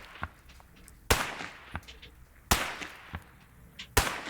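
.308 rifle shots striking dirt: three sharp cracks about a second and a half apart, each with a short fading tail.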